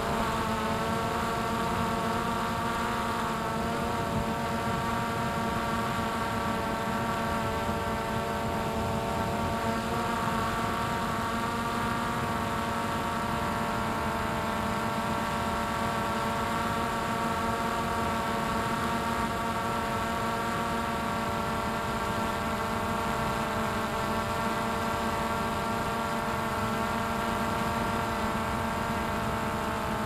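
Quadcopter drone's electric motors and propellers running steadily, a buzzing hum of several steady tones over a whirring noise, picked up by the drone's own microphone.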